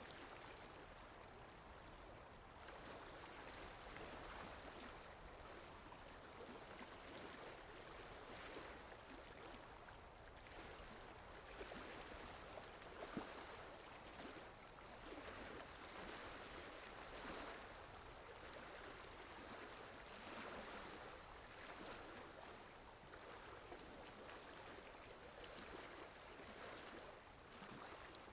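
Steady rain falling, a soft even hiss that swells and eases gently every few seconds, with a slightly louder drop about thirteen seconds in.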